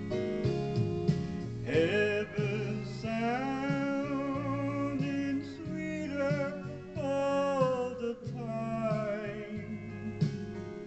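Country gospel music: steady guitar accompaniment with a wavering melodic lead line over it.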